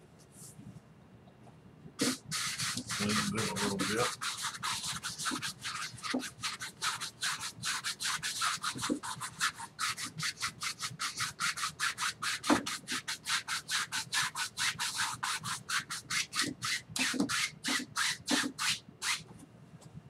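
Paintbrush scrubbing oil paint across a stretched canvas in quick back-and-forth strokes, about three or four a second, starting about two seconds in: wet-on-wet blending of a gray sky.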